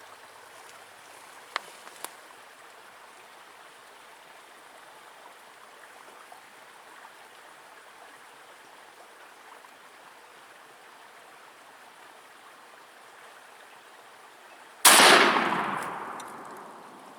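A single shotgun shot near the end, loud and sudden, its echo dying away over about two seconds, over the steady sound of running water from a small forest stream.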